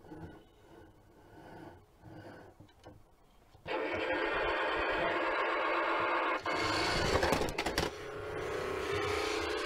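Road Rippers toy garbage truck's electronic sound effects through its small built-in speaker, starting suddenly a few seconds in and running on loudly, with a noisier burst near the middle; before that only a faint rubbing as the truck is handled.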